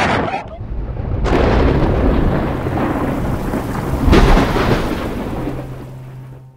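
Thunder with rain: a sudden clap about a second in that rolls on as a rumble, a second loud clap around four seconds in, then the rumble and rain fade away near the end as a low hum comes in.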